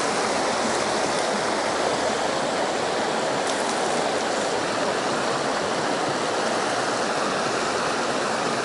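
Creek water rushing steadily through a rocky riffle close by.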